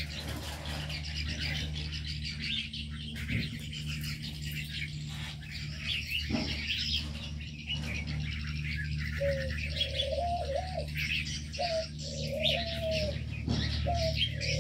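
Many small aviary birds chirping and twittering together, with a dove beginning to coo in repeated notes about two-thirds of the way through. A steady low hum runs underneath.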